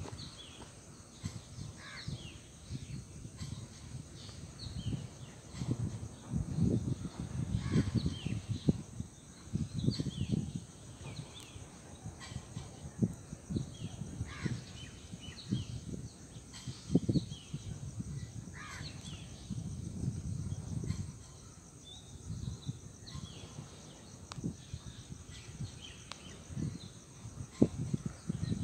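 Outdoor ambience of wind buffeting the microphone in irregular gusts, with scattered short bird chirps.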